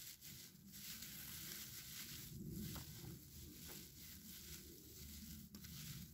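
Faint rustling and crackling of dry shredded sagebrush bark as a tinder bundle is worked in the hands, with a few small snaps of fibers.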